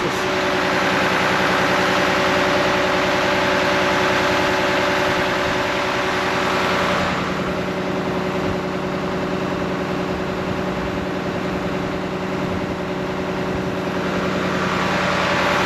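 Tractor engine running steadily while a slurry tanker is emptied through a pipe into a concrete slurry store. A rushing noise lies over the engine and eases about seven seconds in.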